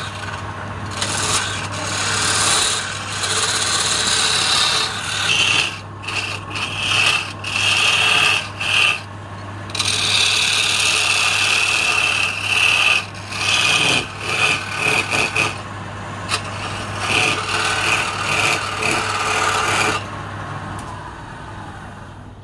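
Hand chisel scraping and cutting a spinning palm-wood blank on a lathe, a dense scraping that breaks off and starts again many times in the middle as the tool is lifted and set back. The lathe's steady low hum runs beneath it, and the cutting stops about twenty seconds in, leaving only the hum.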